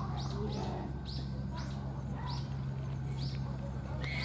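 Small birds chirping in a quick repeated series, about two to three short falling chirps a second, over a steady low hum.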